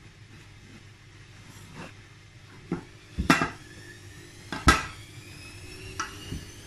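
Aluminium tube cake tin being flipped over onto a plate and knocked down on the table to turn out a baked cake: a few sharp clunks, the two loudest about a second and a half apart, the later one leaving the tin ringing briefly.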